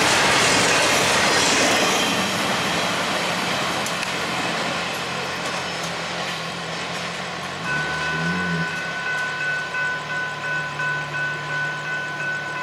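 Last cars of a long freight train rolling past on the rails, the wheel noise fading away over the first few seconds. Then the railroad crossing's warning bell rings on steadily, about two strokes a second, while the signals still flash.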